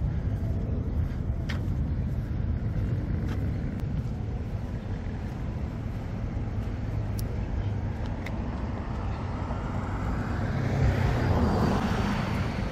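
Steady street traffic rumble, with a vehicle passing close: it swells to its loudest about eleven seconds in and fades near the end.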